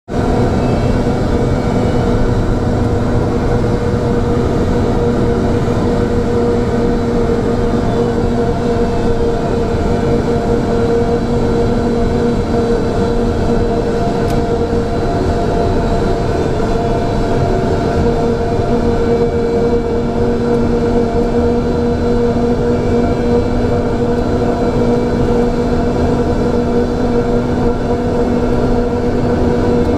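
Steady cockpit noise inside an Antonov An-225 Mriya taxiing on its six turbofans: a constant drone under two steady humming tones.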